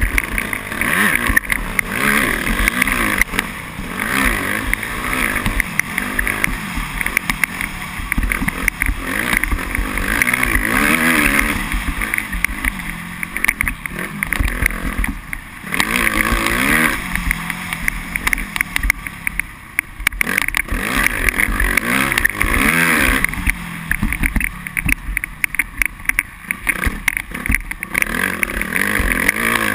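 Suzuki RM-Z250 four-stroke single-cylinder motocross engine running under the rider's throttle, its revs rising and falling again and again, with several brief easings off the throttle.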